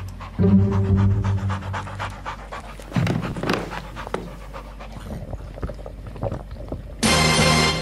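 Cartoon dog panting quickly over low held music notes. Loud music comes in near the end.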